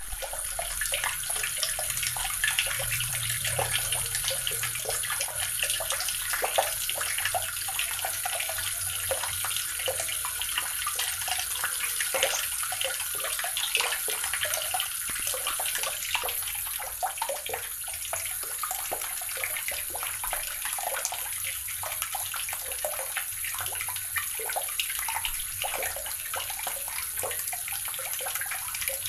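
Water running steadily from a tap and splashing into a basin below, a continuous patter of splashes.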